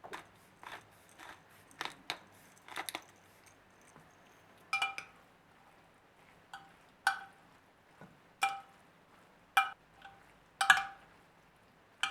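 Dishes and utensils being handled: a run of light knocks, then a series of ringing clinks about a second apart.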